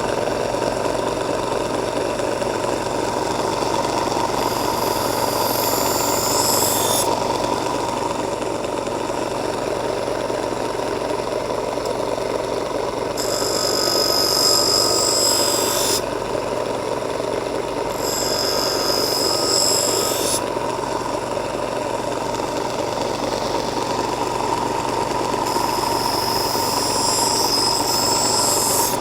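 Bench grinder running steadily while a garden lopper blade is sharpened on its grinding wheel. The blade is pressed to the wheel four times, each pass adding a harsh, high grinding hiss for two to three seconds.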